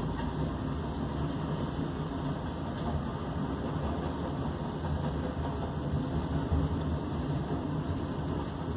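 Heavy diesel machinery running: a wheel loader's engine working beside a tipper truck, a low, even rumble with no distinct knocks.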